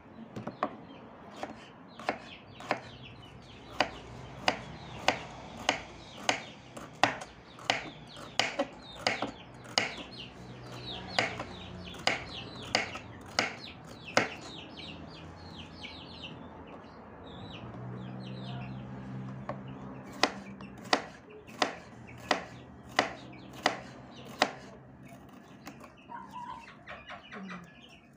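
Kitchen knife slicing bitter melon thinly on a wooden cutting board: a steady run of sharp chops, a little over one a second, which stops for several seconds about halfway and then starts again. A chicken clucks low in the background, most noticeably during the pause.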